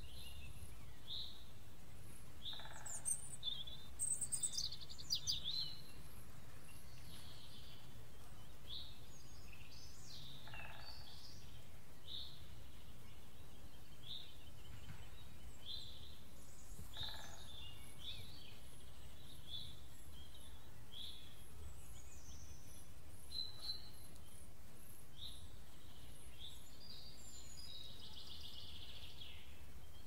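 Forest ambience with birds chirping and calling. One bird repeats a short chirp about once a second while others call higher, with a brief flurry of calls about four seconds in, over a steady low rumble.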